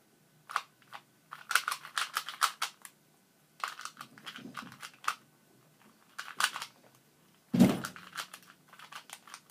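LanLan 2x2 speed cube being turned rapidly by hand: bursts of quick plastic clicking turns with short pauses between them, and one louder knock about three quarters of the way through.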